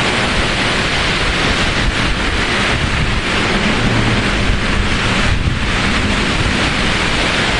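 Strong gale-force wind, a loud steady rush with heavy wind buffeting on the microphone.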